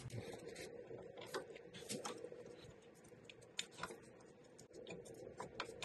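Faint, scattered clicks and taps of hand tools against metal parts in an engine bay, over a faint steady hum.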